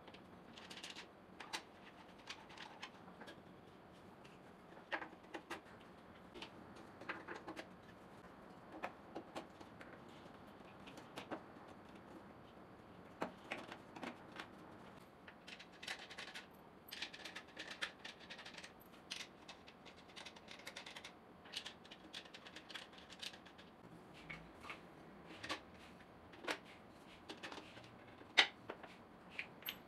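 Irregular light taps, clicks and knocks of wooden posts, rails and shelf boards of a pine-and-board trolley rack being handled and fitted together by hand, with one sharper knock near the end.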